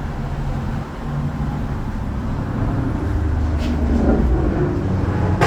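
Motor vehicle traffic: a steady low engine rumble that swells as a vehicle passes close by, loudest about four seconds in, with a single sharp click near the end.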